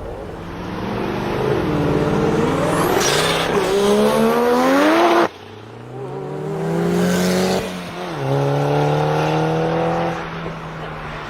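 Twin-turbo Mazda RX-7's rotary engine accelerating hard, its pitch climbing steadily. The sound cuts off abruptly about five seconds in, then the engine climbs again, holds high revs, and drops away near the end.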